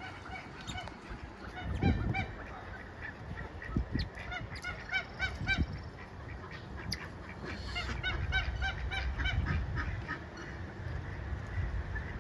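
A flock of farm fowl calling in runs of short repeated calls, about four or five a second, bunched around the middle and again later, over a low rumble.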